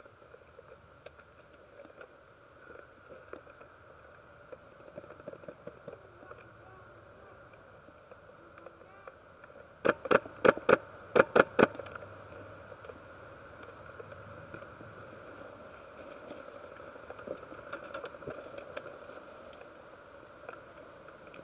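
A quick string of about eight sharp airsoft gun shots over two seconds, about halfway through, above a faint steady drone.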